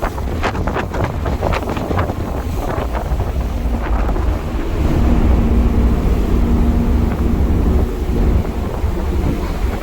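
Wind buffeting the microphone over a deep steady rumble, typical of filming aboard a moving car ferry. Gusts come hardest in the first few seconds, and a faint steady hum comes in around the middle.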